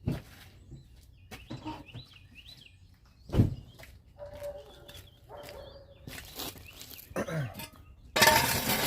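Birds chirping, with a few sharp knocks, the loudest about three and a half seconds in. A loud noisy rush starts near the end.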